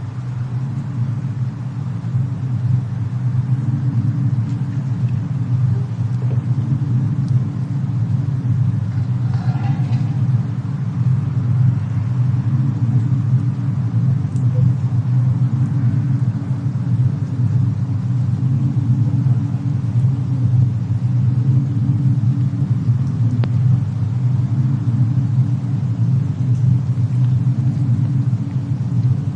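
Steady low rumble from a mixed fireplace-and-snowstorm ambience track, with a few faint crackling ticks.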